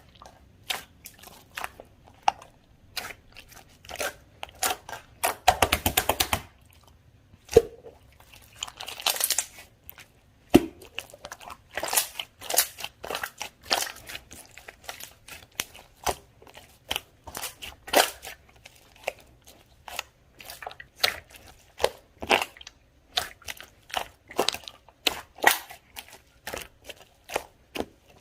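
A large jelly-type slime being pressed, poked and stretched by hand, giving irregular sticky clicks and pops, with a quick run of crackling pops about five and a half seconds in.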